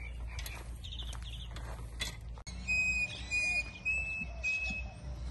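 Bird calling: in the second half, a run of about four clear, steady whistled notes, each about half a second long, over a low rumble.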